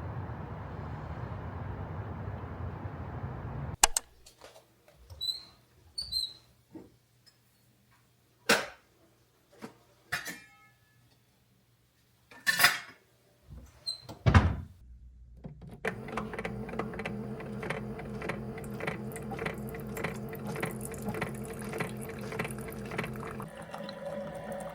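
Household handling sounds: scattered sharp knocks, clicks and light clatter, with a few short high squeaks, like cupboards and dishes being handled. A steady low rumble runs before them, and a steady hum with a held tone starts about two-thirds of the way in.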